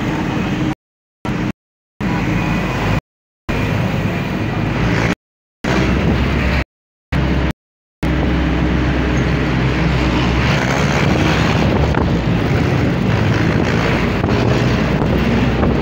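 Steady rumble of a moving vehicle with wind and road noise. The sound cuts out completely six times in the first half, then runs on unbroken.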